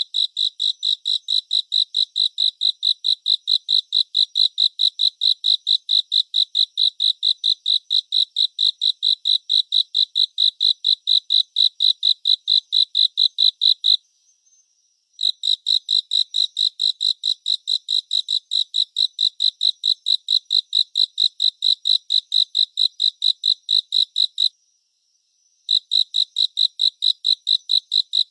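Cricket chirping: a steady run of high, even chirps about five a second, breaking off twice for about a second before starting again.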